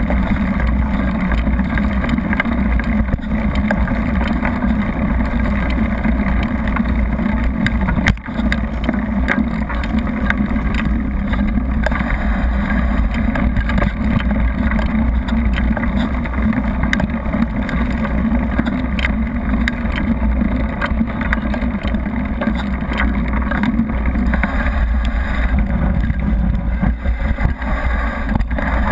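Mountain bike descending a gravel forest road: steady wind rush on the camera and tyre rumble, with frequent small rattles and clicks from the bike.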